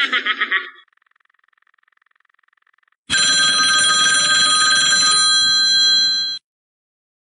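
A telephone bell ringing steadily for a little over three seconds, then cutting off abruptly. Just before it, a rapidly pulsing giggle-like sound fades out and a faint steady tone follows.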